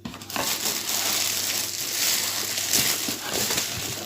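Packaging rustling and crinkling as a box is opened and its contents are unwrapped by hand, a dense steady rustle with small crackles that starts about a quarter second in.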